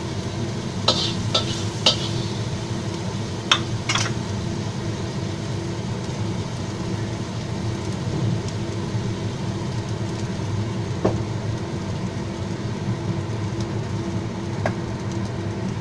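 A metal spatula clinks and scrapes against a wok and a plate several times as stir-fried pork is scooped out of the pan, with a couple of single clinks later. Underneath runs a steady low hum and light hiss from the gas burner and the hot wok.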